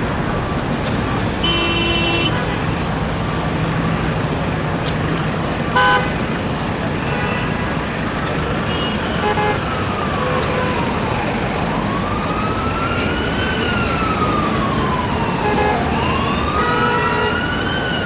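Dense city street traffic noise with a couple of short vehicle horn honks, the louder one about six seconds in. About halfway through, an emergency-vehicle siren starts wailing, its pitch slowly rising and falling in cycles of a few seconds.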